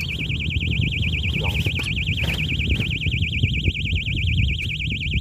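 Electronic fishing bite alarm sounding a continuous, rapidly warbling high-pitched tone that switches on suddenly: a fish is taking the bait and pulling line. A low rumble of wind on the microphone runs underneath.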